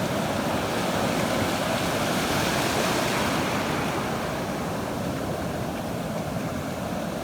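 Sea surf breaking on the shore, a steady rush of water that swells a couple of seconds in and eases off.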